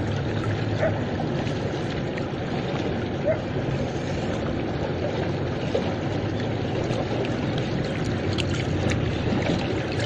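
River water rushing and lapping close to the microphone, with small splashes and a steady low hum underneath.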